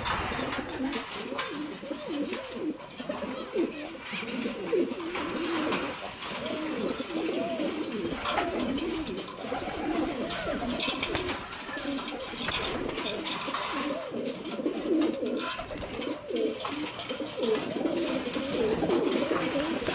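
A flock of domestic pigeons cooing together, many overlapping low coos running on without a break, with scattered light clicks among them.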